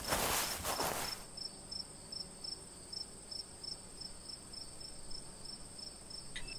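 Crickets chirping at night: short high chirps about three a second over a steady high trill. A rustling noise fades out in the first second.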